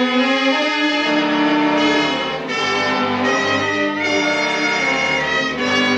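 Brass-led orchestral music bridge: a radio-drama scene-change cue of held chords that shift every second or so.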